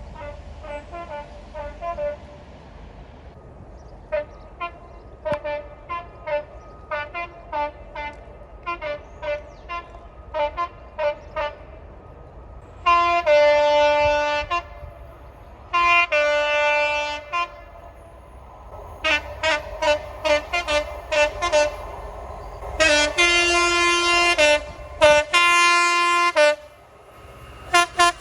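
Train horns sounding over the rumble of passing trains: rapid runs of short toots, then four long two-tone blasts that each step from a high note down to a lower one, the loudest about halfway through and near the end.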